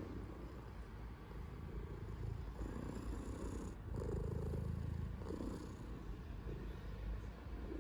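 Domestic cat purring loudly and continuously, the rumble swelling and easing with each breath about once a second.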